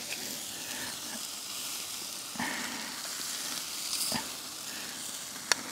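Sausages sizzling on the steel grill top of a Firebox stove, a steady hiss, with three short clicks as they are lifted off the grill.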